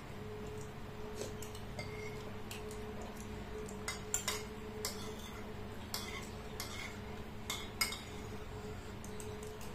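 Metal spoon and fork clinking and scraping against ceramic bowls as two people eat. The clicks are scattered, loudest about four seconds in and again near eight seconds, over a steady low hum.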